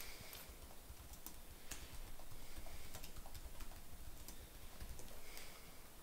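A few faint, irregular clicks of computer keyboard keys over a low background hum.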